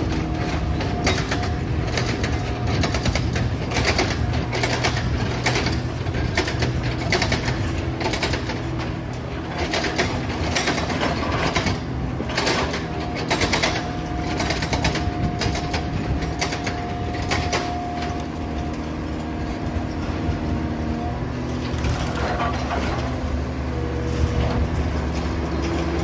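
Komatsu hydraulic excavator's diesel engine running steadily with a hydraulic whine, under many sharp knocks and crashes of building debris being broken and moved during demolition. The knocks come thick and fast for most of the stretch, thin out for a few seconds, then pick up again near the end.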